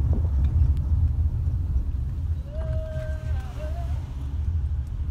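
Low, steady road and engine rumble inside a moving Toyota car's cabin. About two and a half seconds in, a short pitched sound holds for about a second, then wavers upward briefly.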